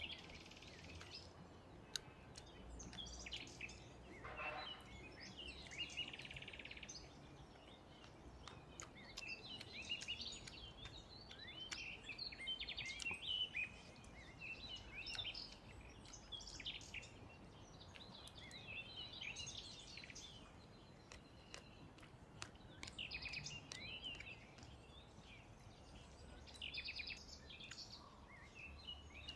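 Small birds chirping and singing, many short high calls in quick runs over a faint steady background, with a few faint clicks.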